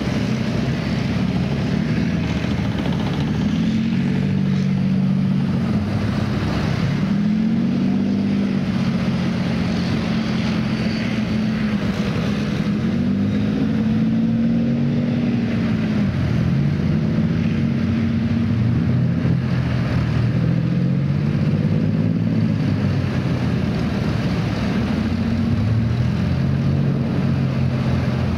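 Diesel engines of tracked armoured vehicles running under load, the engine note rising and falling again and again over a continuous rumble.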